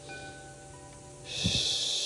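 A person's breathy exhale, a hiss lasting about a second that starts just past halfway, with a soft low thump at its onset, over faint steady ringing tones.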